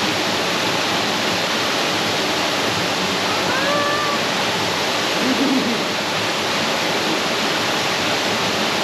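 Steady rushing of a waterfall, with a brief faint pitched call about three and a half seconds in.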